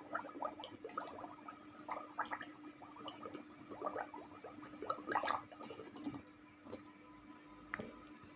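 A person gargling water in the throat: runs of bubbly gurgles, the loudest about five seconds in, after which it stops.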